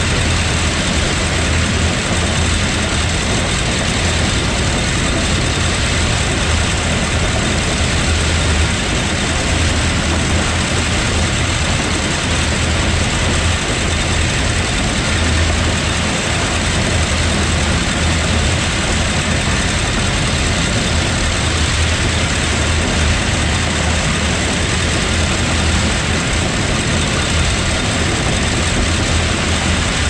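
A tractor engine and the Allis-Chalmers All-Crop 60 pull-type combine it tows, running steadily together while threshing soybeans. The engine's deep, even drone blends with the combine's machinery, with no change in pace.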